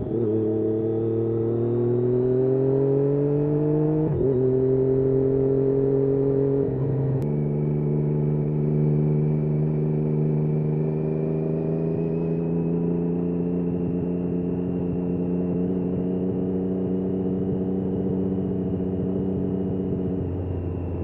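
Triumph Daytona 675's inline three-cylinder engine pulling through the gears. The revs climb, drop at a gear change about four seconds in and again about seven seconds in, then hold nearly steady, easing off a little near the end.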